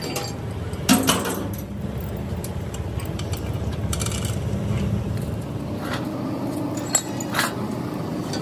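Metal clinks and knocks of hoist chains and a truck rear axle housing being handled onto a steel stand, the sharpest knock about a second in and a few lighter ones later, over a steady low hum.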